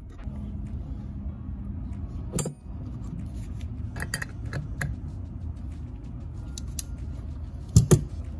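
Metal hand tools clinking against a motorcycle water pump housing and shaft as an open-end wrench is fitted to the shaft nut: a few scattered sharp clicks, with the loudest, a quick double clank, near the end.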